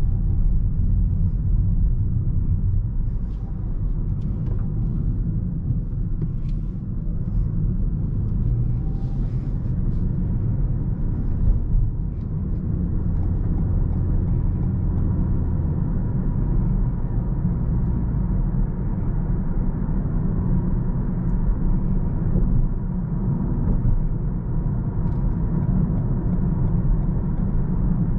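Steady low road rumble and tyre noise from a 2022 Toyota Corolla 1.8 Hybrid hatchback being driven at city speed, with a few faint ticks in the first half.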